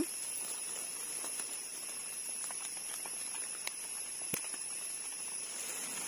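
Steady hiss of forest background with a constant high, thin tone, and two faint clicks a little past halfway, as leaf litter is handled while a mushroom is picked.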